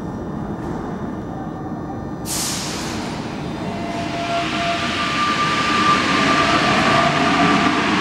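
Alstom NS-93 rubber-tyred metro train running into a station, its rushing noise growing louder from about three seconds in, with a whine coming and going on top. A short sharp hiss sounds about two seconds in.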